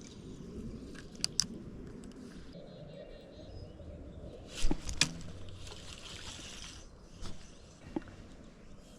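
Creek water running, with a few sharp clicks and knocks scattered through it, the loudest pair about five seconds in.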